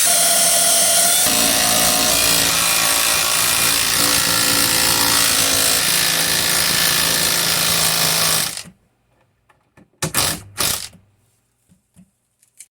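Power drill running steadily under load, pre-drilling pilot holes for lag bolts, for about nine seconds before stopping abruptly. Two or three short bursts of the drill follow shortly after.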